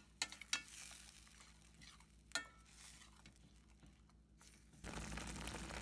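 Metal spoon stirring thick ground chutney in a stainless steel pan, with a few sharp clicks and scrapes of the spoon against the pan in the first couple of seconds. A steady faint hiss sets in near the end.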